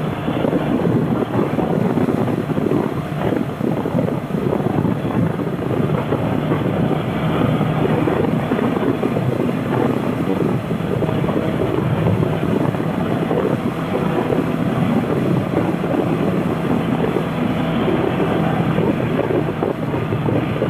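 Motorcycle engine running steadily on the move, mixed with heavy wind noise on the microphone.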